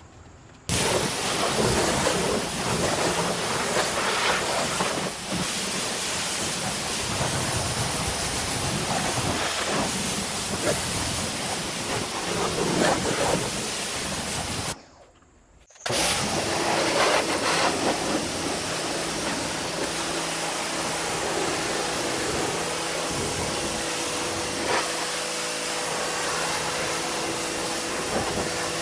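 Pressure washer spraying water in a steady hiss. It cuts out for about a second around the middle, then resumes with a faint steady hum beneath it.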